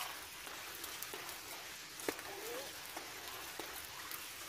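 Quiet river ambience: a soft, steady hiss of moving water with a few scattered small ticks and drips.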